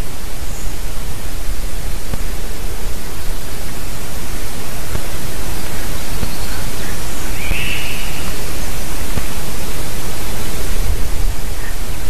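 Wind rushing over a treetop nest camera's microphone, a loud steady noise with heavy low rumble. A short bird call stands out about two-thirds of the way through.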